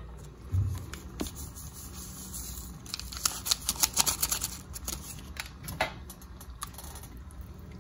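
Foil Sazón Goya seasoning packet crinkling and being shaken out over a pot, with a quick run of sharp crackles from about three seconds in to about four and a half.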